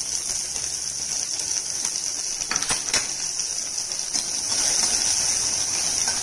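Chopped onions sizzling steadily in hot oil in a stainless steel kadai, with a steel slotted spoon clinking twice against the pan about three seconds in as they are stirred.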